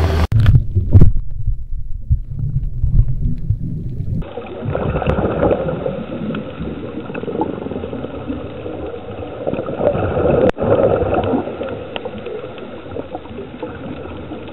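Muffled underwater sound on a scuba dive. For the first few seconds there are low, dull thumps and rumble. After that comes a steady underwater wash with gurgling swells every few seconds, from a diver's exhaled regulator bubbles.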